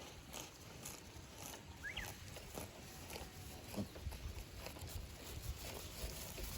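Goats milling about, with scattered small knocks and rustles and a short rising high chirp about two seconds in.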